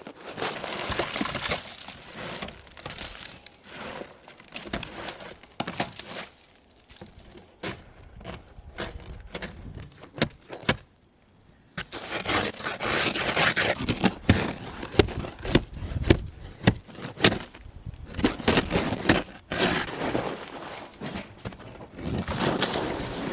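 Hand demolition of a caravan's interior: wooden panelling cracking and breaking, with crinkling, scraping and repeated sharp knocks, the knocks thickest in the second half.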